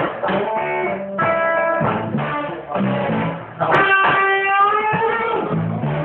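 Live band playing, with electric guitar to the fore over bass and drums; a little past halfway a long guitar note is held and bent in pitch.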